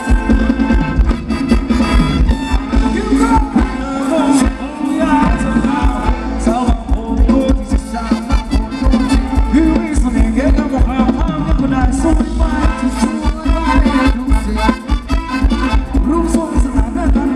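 Thai ramwong dance music played by a live band through the stage PA, with a steady, driving dance beat.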